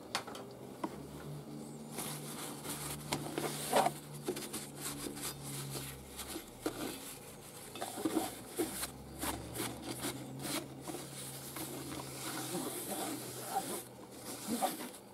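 Hand handling sounds around the stopped metal spinner head of a homemade cotton candy machine inside a plastic basket: rubbing and rustling with scattered small clicks and knocks of plastic and metal.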